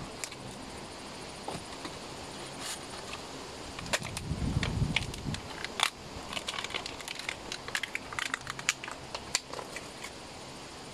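Scattered small clicks and scrapes of metal air-hose coupling parts being handled and fitted together by hand, with a brief low rumble about four seconds in.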